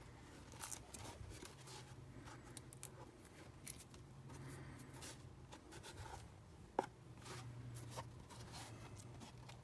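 Faint rustling, crinkling and light clicks from handling the laminated polyethylene backing of an eSAPI armor plate among torn plastic film and boron carbide shards, with one sharper click about seven seconds in. A low steady hum runs underneath.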